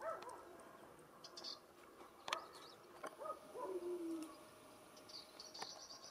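Birds calling: short low rising-and-falling calls near the start and again about three seconds in, with a longer, lower held note just after, and high chirps from small birds about a second and a half in and near the end. A few sharp clicks fall in between.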